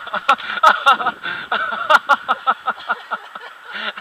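A person laughing close to the microphone, a rapid run of short 'ha-ha' bursts that keeps going, several a second.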